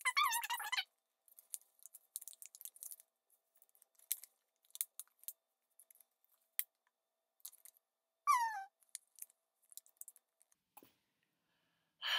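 A paper circle being folded and creased over and over: scattered soft crinkles and taps of the paper, with a couple of brief squeaky sounds, one falling in pitch about eight seconds in. It ends on a tired sigh.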